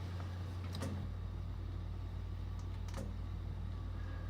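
Steady low electrical hum with a few faint clicks, about a second in and again about three seconds in, as paper kit contents are handled.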